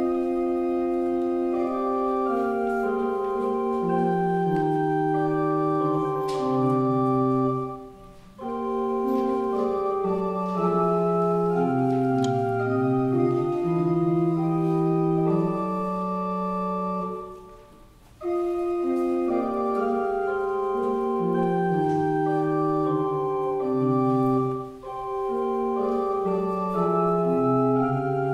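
Pipe organ playing held chords and moving lines on the manuals. The music breaks off briefly about eight seconds in and again around seventeen seconds, with a shorter dip near twenty-five seconds.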